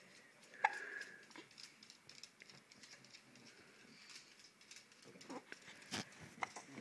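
A baby hiccuping: one sharp hiccup with a brief squeak about half a second in, then a few fainter hiccup sounds and clicks near the end.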